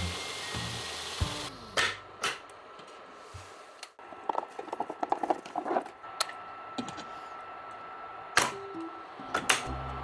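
Kitchen handling sounds: a short hiss at the start, then scattered clicks and knocks of cookware and utensils, with a crackly run of quick clicks in the middle and a faint steady tone beneath the second half.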